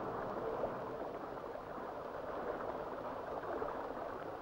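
River water running and lapping steadily, an even wash with no distinct knocks or calls.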